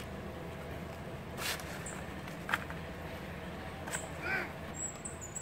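Potting mix being scooped by hand and dropped into a plastic pot: a few short rustles and sharp clicks over a steady low hum.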